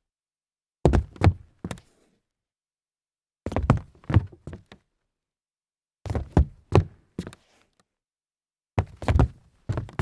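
Foley of stumbling footsteps on hollow wood: four stumbles, each a quick uneven cluster of three or four knocking thuds lasting about a second, coming about every two and a half seconds.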